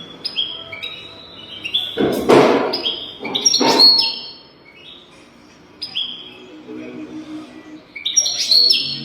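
European goldfinch singing: a rapid, twittering run of short descending chirps. It is broken by two louder noisy bursts about two and three and a half seconds in, and pauses briefly near the middle.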